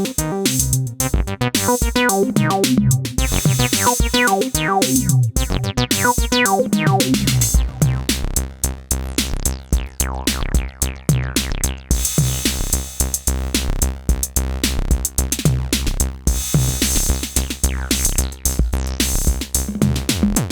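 Acid bass line from an Elektron synthesizer over a drum machine beat. About seven seconds in, the pattern changes to a lower, steadier bass under the beat.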